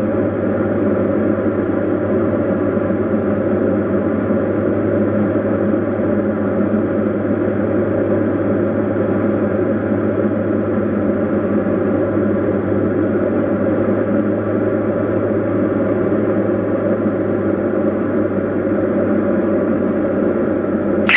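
Light aircraft's single piston engine and propeller running at a steady approach power, heard as a constant drone inside the cockpit during the descent to landing.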